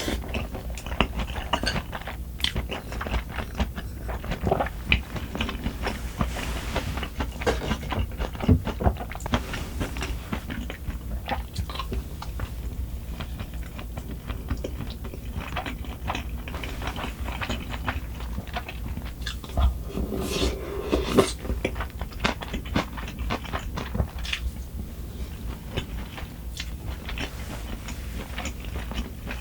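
Close-miked eating: a person chewing and biting food, with many small wet clicks and occasional crunches, over a steady low hum.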